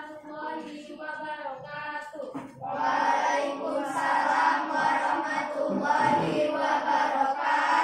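A girl's voice in a sing-song, chant-like delivery. About two and a half seconds in, many children's voices join together in unison, louder, to the end.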